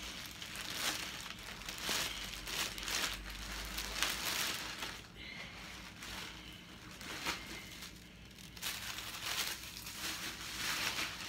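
Clear plastic garment bag crinkling in irregular bursts as a pair of pants is pulled out of it. The crinkling is busiest in the first half and sparser after.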